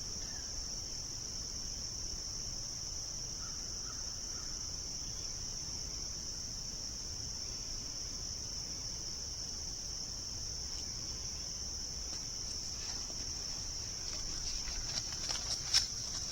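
Steady high-pitched chorus of insects droning outdoors. Toward the end a few light clicks and knocks come through, one louder than the rest.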